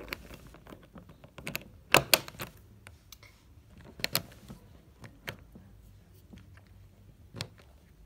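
A suitcase's TSA combination lock being handled: the metal zipper pullers clack into the lock housing, loudest about two seconds in, then the number wheels are flicked round with a few light clicks, scrambling the code.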